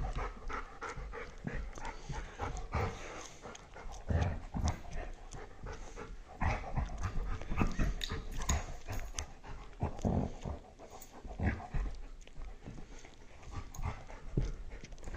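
An older dog and a nine-week-old puppy play-wrestling: scuffling and bumping with irregular soft thumps of paws and bodies on carpet, and panting.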